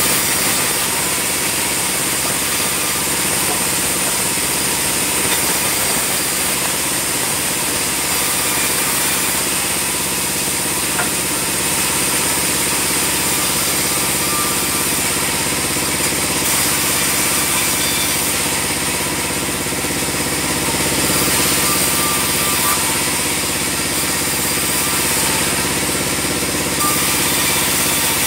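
Band sawmill running steadily, a constant machine drone with no breaks or changes.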